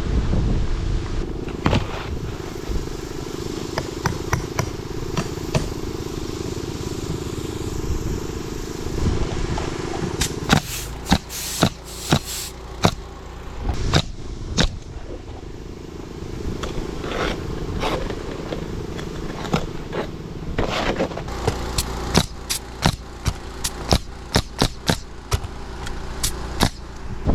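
Pneumatic roofing nailer firing nails into asphalt shingles in quick runs of sharp shots, over a steady low drone.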